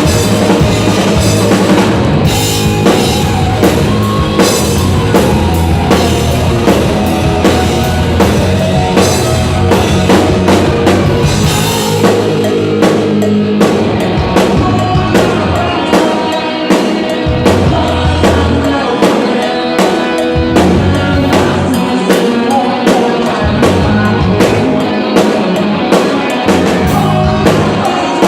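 Live hard rock band playing, with the drum kit up front and singing over it.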